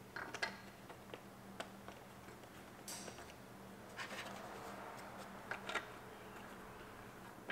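A few faint, scattered clicks and taps of hands handling screws and the plastic fog light housing while starting the screws by hand, over a faint steady hum.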